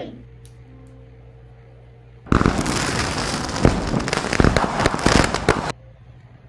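Fireworks crackling: a dense run of rapid pops and crackles begins a couple of seconds in, goes on for about three seconds, then cuts off suddenly.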